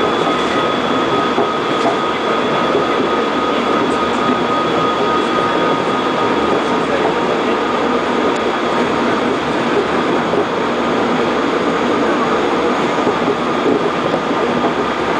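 Korail 311000-series electric commuter train running at speed, heard from inside the car: a steady rumble and rush of wheels on track, with a thin steady high whine over it.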